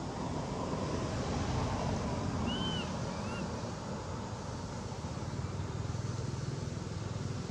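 Steady outdoor background noise, with two brief high chirps a little over two and a half and three seconds in.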